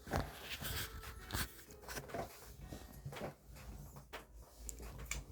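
Faint scattered rustles and soft taps of handling noise in a quiet small room, with a louder rustle about a second and a half in and another near the three-second mark.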